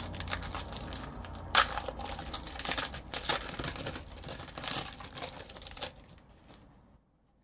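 Trading-card pack wrappers crinkling and tearing while cards are handled, with scattered sharp crackles, the loudest about a second and a half in. The handling dies away about six seconds in and stops near the end.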